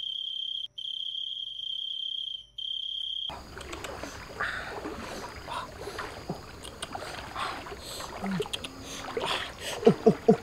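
A cricket trilling in one steady high tone for about three seconds, breaking off briefly twice, then cutting out. After that, water sloshing around a basin pushed through floodwater, with scattered small clicks and a few sharp knocks near the end.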